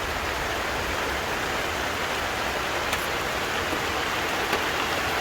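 Steady rain falling, an even hiss, with one faint click about three seconds in.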